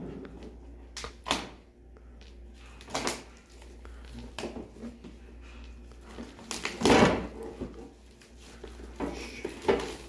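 Clear plastic shrink wrap being picked at and peeled off a cardboard shoe box by hand: scattered crinkles and scratches, with one louder, longer rustle about seven seconds in.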